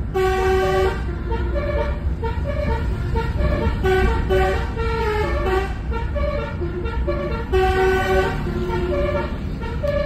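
Basuri telolet bus horn playing a tune as a quick run of short, pitched notes, over the steady low running of the bus engine.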